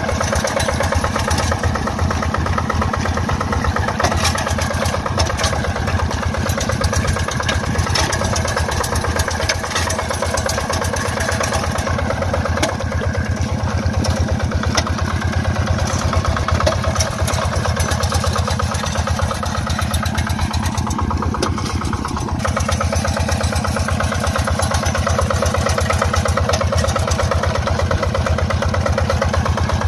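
Two-wheel hand tractor's engine running steadily with a fast, even firing rhythm as it pulls a comb harrow through flooded paddy mud.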